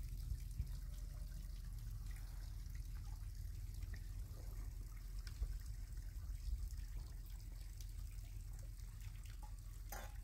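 Light rain falling in the open, faint patter and scattered drips over a steady low rumble. A sharp knock comes right at the end.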